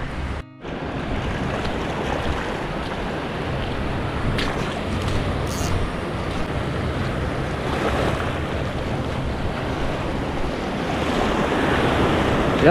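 Small waves breaking and washing over a shallow rocky reef shore, with wind buffeting the microphone. The sound drops out briefly about half a second in.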